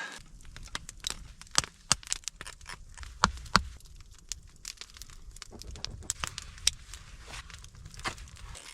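Irregular sharp clicks and taps of hand work on a knife and its sheath, with a low rumble underneath.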